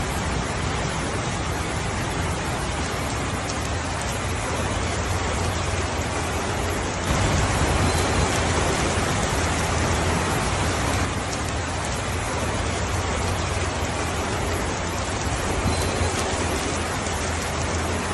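Heavy, steady rain: an even hiss of falling rain with low-pitched noise underneath, swelling louder for a few seconds about midway before settling back.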